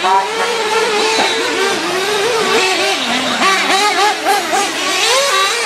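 Several petrol RC buggies' small two-stroke engines racing together, each engine's pitch rising and falling as it revs up and backs off, the pitches overlapping.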